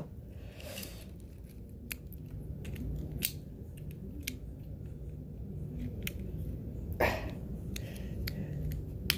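Small, irregular plastic clicks and snaps as a Bakugan Battle Planet Trox figure is folded by hand back into its ball form.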